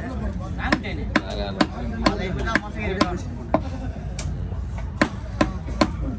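Large knife chopping tuna flesh into cubes on a round wooden chopping block: about ten sharp knocks, roughly two a second.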